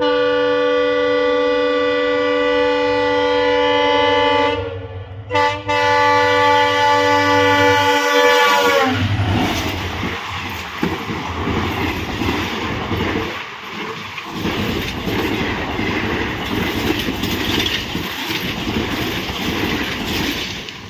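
Indian Railways passenger train's locomotive horn sounding a long chord-like blast, breaking off briefly about four and a half seconds in, then a second blast whose pitch drops slightly as it ends. The train then passes, its wheels clattering over the rail joints, fading near the end.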